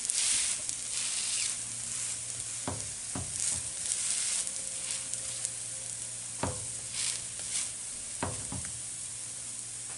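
Lentil-and-carrot flatbread frying in coconut fat in a non-stick pan, with a steady sizzle. A plastic slotted spatula taps and presses on it several times with short sharp clicks.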